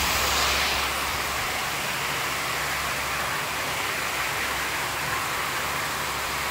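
Heavy rain falling in a steady hiss, slightly louder in the first second, with the low steady hum of a working excavator's engine underneath.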